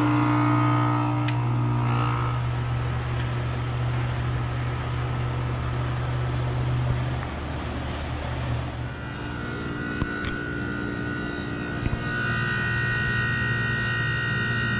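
Outdoor heat pump units running in defrost: a 2012 Carrier Comfort with a strong steady hum that stops about seven seconds in, then a 2016 Trane XR14 with a reciprocating compressor running with a steady hum and a high steady tone.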